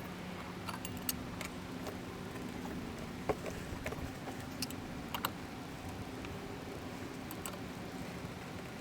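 Scattered light metallic clicks and clinks of hand tools on the outboard's flywheel and puller, a dozen or so at irregular intervals, over a steady low hum.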